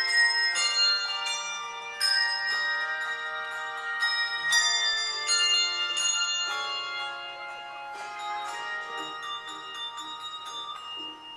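Handbell choir ringing a melody with chords, each cluster of bells struck together and left to ring, getting softer over the second half.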